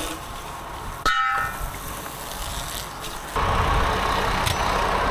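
A heavy truck engine runs steadily. About a second in there is a short sudden sound with a stack of high tones. Just past three seconds the noise becomes louder and fuller, with more low rumble.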